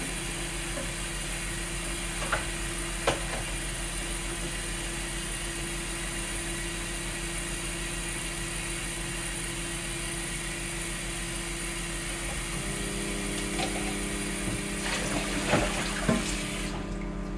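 Kitchen tap running steadily into the sink during washing-up, with a couple of sharp clinks early on and a clatter of dishes near the end. The running water cuts off suddenly just before the end.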